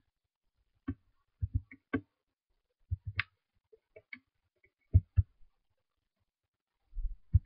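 Computer mouse clicking: about a dozen short, sharp clicks spaced irregularly, several in quick pairs.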